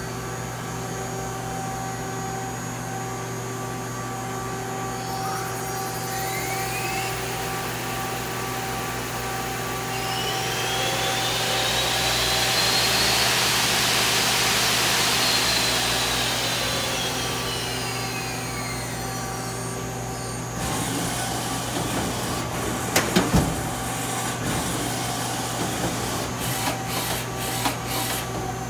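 Mazak Nexus QTN 300M CNC turning center running with a steady hum. A whine rises then falls, as with the spindle speeding up and slowing down, and is loudest midway. Later the sound changes and a few sharp clicks and knocks follow.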